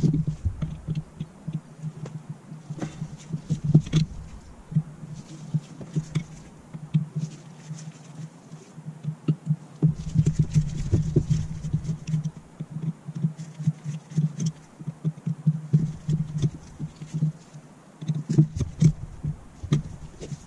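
Screwdriver working the screws on a Zenith 30IZ carburettor: irregular small metal clicks, taps and scrapes as the carb is turned and the screws are worked, over a steady low hum.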